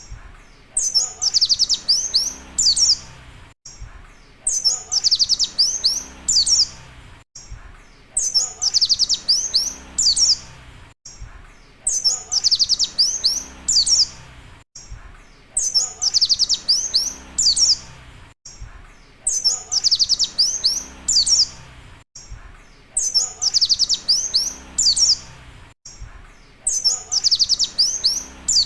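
White-eye (pleci) singing: rapid, high twittering song phrases of about two seconds, the bursts running into 'wit-wit' calls. The same phrase repeats about every three and a half seconds, eight times over.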